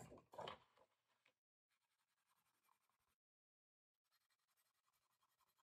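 A pen scratching briefly on paper, which stops about a second in, then near silence with a faint hiss.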